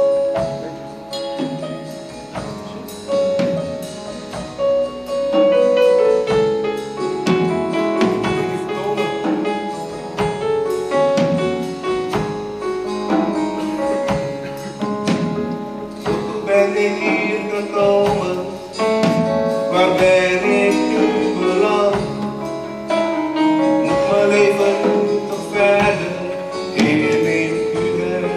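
A live band with a drum kit playing a song, with a solo voice singing the melody over it.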